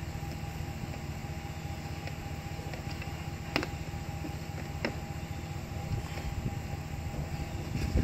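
Steady low mechanical hum, with two short sharp clicks about three and a half and five seconds in as the plastic shore power hatch and cord are handled.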